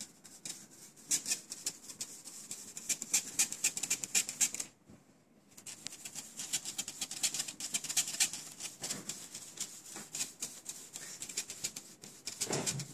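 Imitation gold leaf being rubbed by fingers through a small hand-held sieve, a rapid dry scratching and crackling as the flakes are scattered onto egg-sized board. The rubbing pauses briefly about five seconds in, then resumes.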